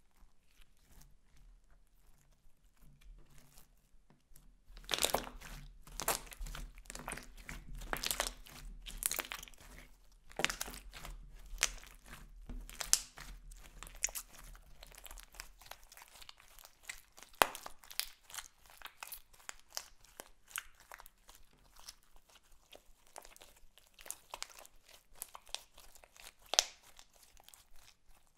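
Glitter-filled clear slime being stretched, folded and squeezed by hands: sticky crackling and popping that starts about five seconds in and is busiest through the first half, then thins to scattered sharp pops.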